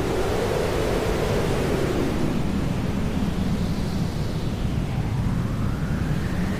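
Steady hair dryer noise used as white noise: a dense, even rushing hiss, its tone slowly drifting up and down.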